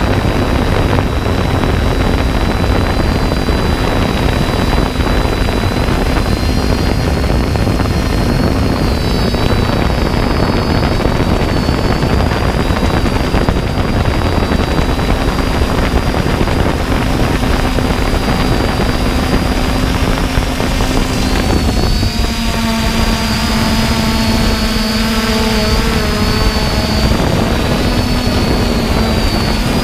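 3DR Iris+ quadcopter's four electric motors and propellers whining steadily in flight, heard from the drone's own camera, with a low rumble of wind on the microphone. About two-thirds of the way through, extra lower whining tones join in, then fade out again near the end.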